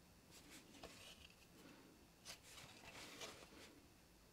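Faint rasp of embroidery thread drawn through Aida cross-stitch fabric as half cross stitches are sewn, in a few soft pulls.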